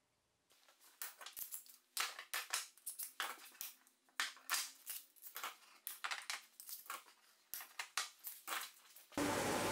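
Metal bar clamps being handled and released from glued-up wooden boxes: an irregular run of sharp metallic clicks and clacks, with wood knocking on the workbench. Near the end it switches abruptly to the steady noise of an edge sander running.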